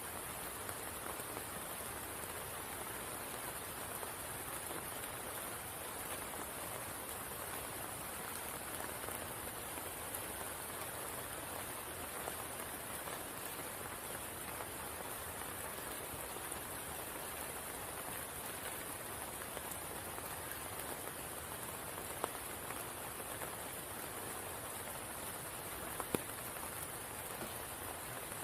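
Steady rain falling on a spring pool: an even hiss with a couple of sharper drop ticks in the last few seconds.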